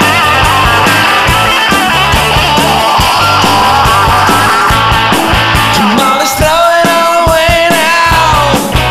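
Power-pop rock band playing an instrumental section: electric guitars, bass and drums. From about six seconds in, a held lead line with vibrato rises above the band.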